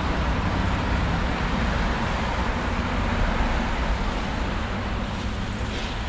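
Busy urban car traffic: a steady rumble of engines and tyres from passing vehicles, easing slightly toward the end.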